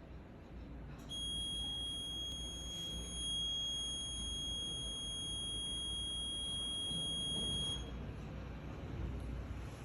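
Radiofrequency treatment unit giving one steady, high-pitched beep tone for about seven seconds during a nasal radiofrequency treatment. It starts about a second in and cuts off suddenly near the end.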